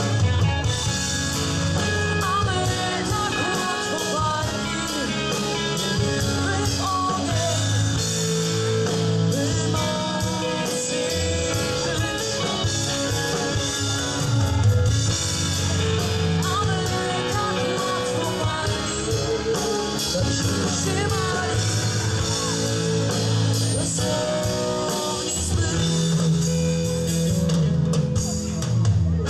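A rock band playing live: a woman singing over electric guitar, bass guitar and drums, with a steady beat.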